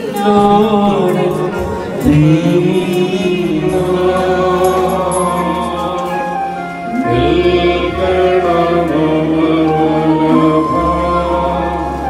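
Slow Malayalam devotional song: long, held sung notes that glide between pitches over a steady, sustained accompaniment.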